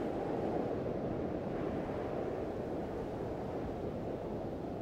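Steady, dull rush of strong wind and breaking sea surf, with no distinct events.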